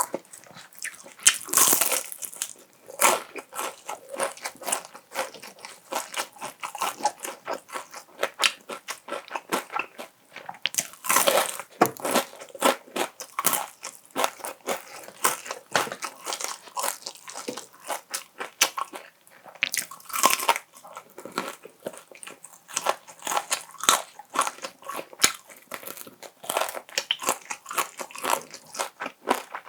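Close-miked crunching bites and chewing of crispy fried chicken, with dense crackling crunches and a few louder bites.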